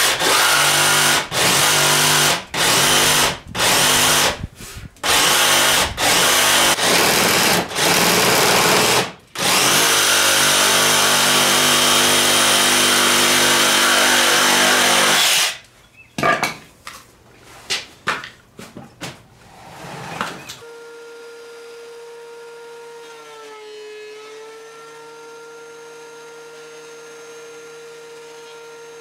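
Jigsaw cutting a curved end into an old wooden board, first in a string of short stop-start bursts, then one unbroken cut of about six seconds, then a few brief spurts. In the last third, a much quieter steady hum with a slight dip in pitch midway.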